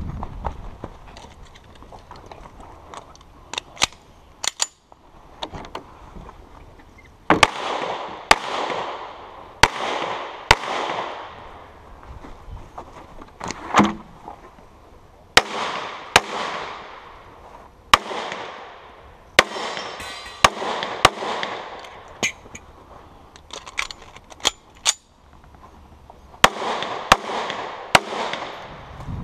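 Semi-automatic pistol shots, mostly in quick pairs spaced a second or more apart, each crack followed by a ringing echo; a few lighter cracks come in the first seconds, and the loud shots start about seven seconds in.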